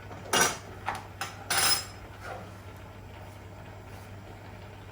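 A metal utensil knocking and scraping against a cooking pan, a few sharp clanks in the first two seconds, while fresh coriander is added to a curry.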